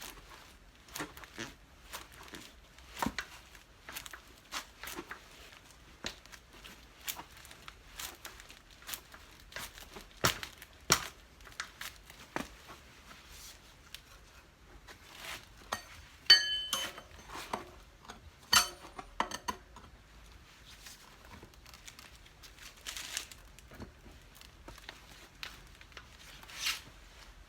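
Hand work on a cart wheel's tyre: irregular small clicks, taps and knocks from tools and parts being handled. A metal tool or part strikes and rings briefly about sixteen seconds in, with another sharp clank a couple of seconds later.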